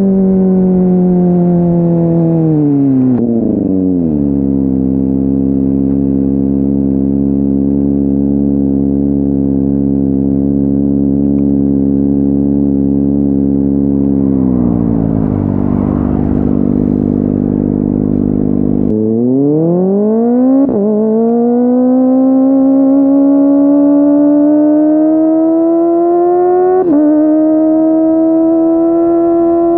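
Kawasaki ZX-25R SE's 250 cc inline-four engine through a Yoshimura R55 slip-on exhaust. The revs fall a few seconds in and hold steady for about ten seconds, then pick up sharply and climb steadily, with a couple of brief jumps in pitch.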